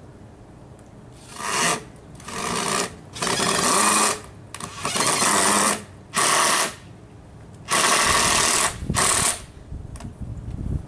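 Cordless drill running in about seven short bursts, driving a screw into the wooden table frame.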